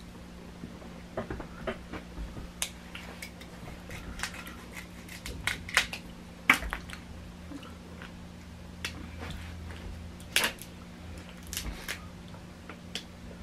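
Snow crab and crawfish shells being cracked and picked apart by hand at the table, with scattered sharp clicks and cracks, the loudest about six and a half and ten and a half seconds in, and some chewing. A steady low hum runs underneath.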